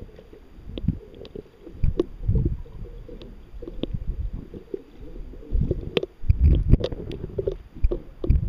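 Muffled, bass-heavy water rumble and sloshing heard through a submerged camera's waterproof housing, swelling and fading, with scattered sharp knocks and clicks.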